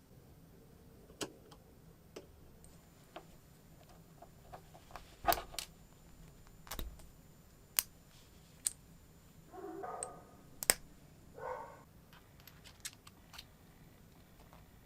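Small metal engine parts and hand tools clicking and tapping during hand assembly of a miniature engine, with two short scraping sounds about two-thirds of the way through.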